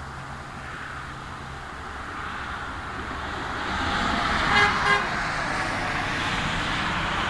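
A passing car gives a quick double toot of its horn about four and a half seconds in, over the swelling tyre and engine noise of the car as it approaches and goes by.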